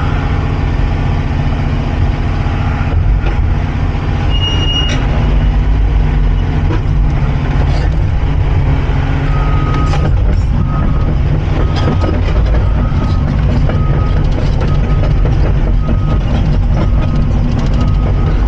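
Cat 349 excavator's diesel engine running steadily as the machine travels, with occasional knocks and clanks. From about halfway in, its travel alarm beeps about once a second.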